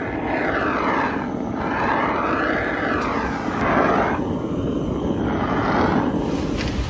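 Steady roar of flame as wood pellets catch in a homemade pellet burner cup, lit with a handheld butane torch. The rushing sound slowly sweeps up and down in pitch and eases off near the end.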